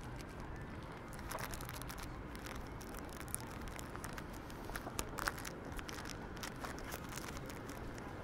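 Footsteps of a person walking, short uneven taps about one or two a second, over a steady low outdoor rumble.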